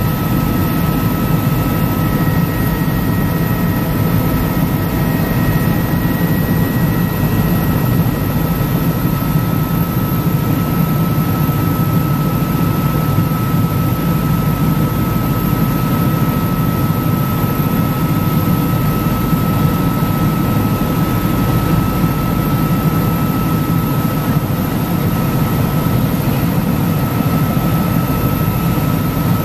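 Helicopter in steady cruising flight heard from inside the cabin: a constant loud drone of engine and rotor with a steady high-pitched whine over it.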